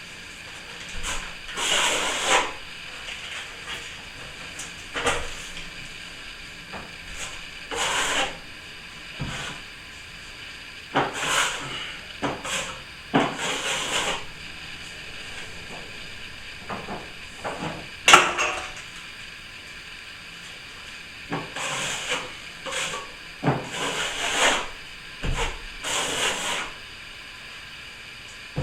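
Hand plastering tool rubbing and scraping across a plaster ceiling joint in short, irregular strokes, with one sharp knock a little past the middle.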